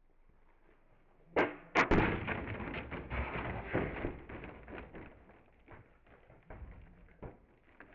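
Plastic water bottles set up as bowling pins on concrete, struck by a rolled ball: a sharp hit about a second and a half in, two more hard knocks right after, then the bottles clattering as they topple and roll, dying away over several seconds.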